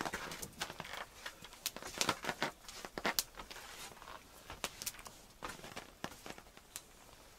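Small wood campfire crackling, with irregular sharp pops as a resinous pine log catches, the pops thinning out towards the end.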